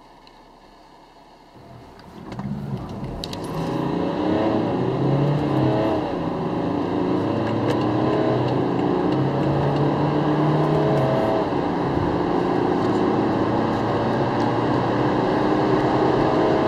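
Diesel car engine accelerating hard from a standstill, heard from inside the cabin. The engine note climbs in pitch and drops back twice at gear changes.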